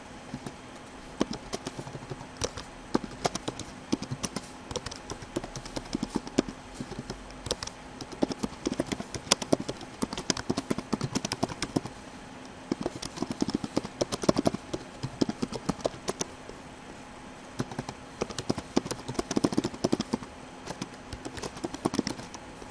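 Computer keyboard typing: quick runs of keystroke clicks in bursts, with short pauses between words and lines. A faint steady hum sits under it.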